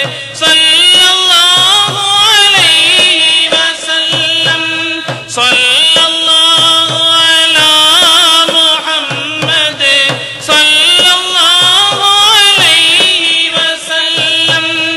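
Tamil naat, a devotional song in praise of the Prophet: an ornamented, wavering melody over a held drone with a regular drum beat, dipping briefly about five and ten seconds in.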